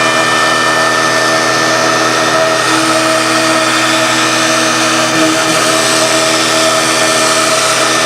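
CNC router running steadily as it cuts cement-bonded particle board (betopan), a constant machine noise with a steady high whine.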